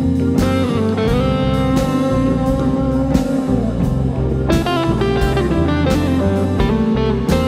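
Blues jam in C major: an electric guitar plays sustained lead notes, some bent upward in pitch, over a backing of bass and drums with a steady beat.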